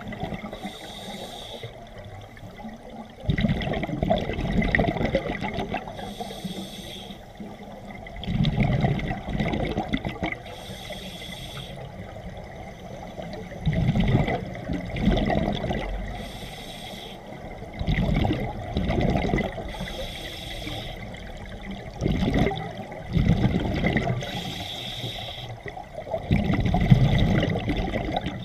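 A scuba diver breathing underwater through an open-circuit regulator: a short hiss with each inhalation, then a longer, louder rumble of exhaled bubbles. About six breaths, one every four to five seconds.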